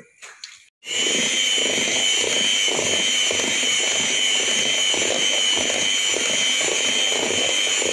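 Electric hand mixer switched on about a second in and running steadily, its beaters churning chocolate cake batter in a stainless-steel bowl, with a steady high motor whine.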